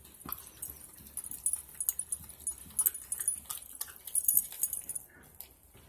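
Puppy gnawing a raw chicken drumstick, bone and all: irregular wet crackles and snaps of teeth working meat and bone, easing off near the end.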